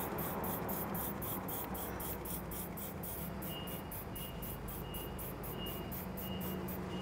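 Trigger spray bottle of grill degreaser pumped rapidly, a short hiss of spray about four times a second, over a low steady hum.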